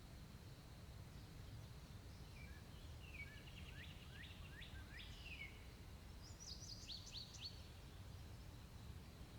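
Faint songbird chirping outdoors: a run of quick downward-sliding notes, then a second, higher run a second or so later, over a faint steady low rumble.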